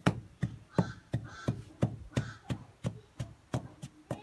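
Wooden pestle pounding chopped ukazi (afang) leaves in a wooden mortar: a steady run of dull thuds, about three a second.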